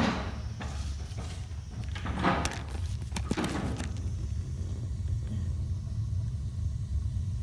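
Bradford White Defender gas water heater's burner running with a steady low rumble after being relit, with brief rustling and scraping near the start and again about two to four seconds in.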